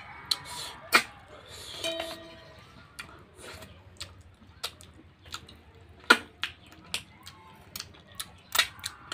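Close-up mouth sounds of eating rice and curry by hand: chewing and wet lip smacks, heard as sharp clicks scattered irregularly through, with fingers sucked clean near the end.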